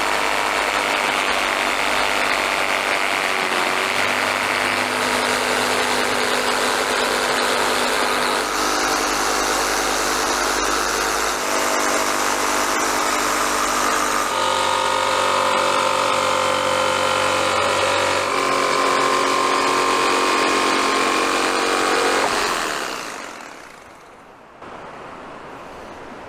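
Corded jigsaw cutting lengthwise through PVC pipe, the blade rasping through the plastic over a steady motor whine that shifts in pitch a few times. About 22 seconds in the saw is switched off and winds down.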